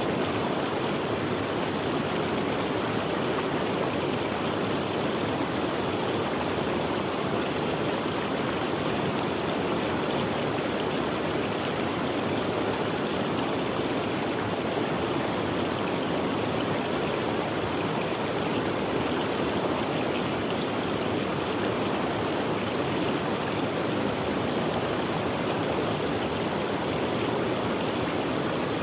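Running water of a stream flowing steadily, an even rushing sound with no breaks.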